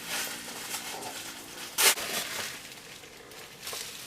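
Tissue paper rustling and crinkling as a small wrapped model car is unwrapped by hand, with one sharper crackle about two seconds in.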